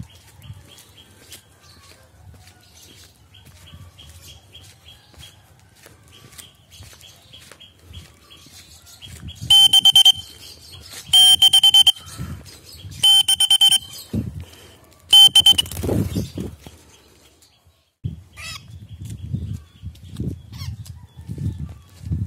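Baby lovebird giving shrill, loud calls close by: four piercing bursts, each under a second, spaced about one to two seconds apart in the middle, with fainter quick chirps before them and low rustling near the end.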